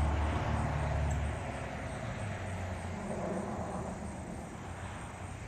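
A low engine hum, as of a passing motor vehicle, loudest at first and fading away after about a second, over faint outdoor background noise.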